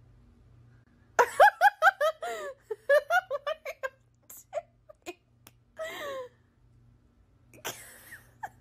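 A person giggling in quick, high-pitched bursts, starting about a second in. Later there are a few short clicks, one more laugh, and a breathy laugh near the end.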